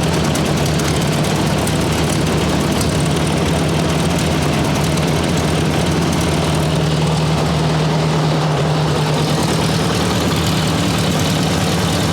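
1958 Ford 851 tractor's four-cylinder gasoline engine running steadily at a low, even speed.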